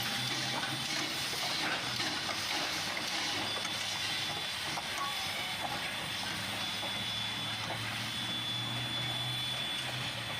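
Jeddo Coal No. 85, a 1928 Vulcan 0-4-0 tank steam locomotive, hissing steam as its train gets under way, with a steady low hum underneath.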